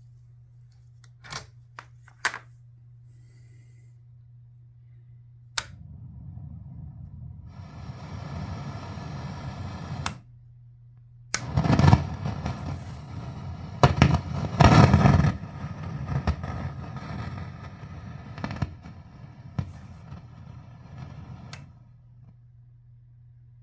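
Marshall DSL40CR guitar amplifier giving a steady low hum, broken by sharp pops and bursts of crackling noise that swell loudest in the middle and die away near the end. This is the amp's noise fault.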